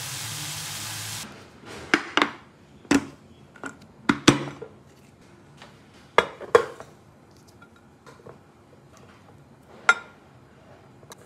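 Chicken and mixed vegetables sizzling in a frying pan, cutting off about a second in. Then a series of separate clinks and knocks as cooked rice is scooped into a glass food container, the serving utensil tapping against the glass dish and the pot.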